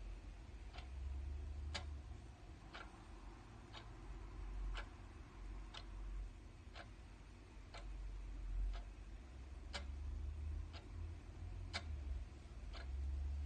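Clock ticking steadily, about one tick a second, over a low background rumble.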